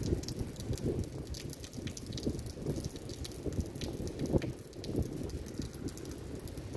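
Rain falling close to the microphone: many irregular drop ticks over a low, uneven rumble.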